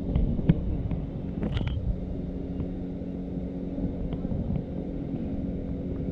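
Steady low mechanical hum with a low rumble underneath, with a few faint clicks in the first two seconds.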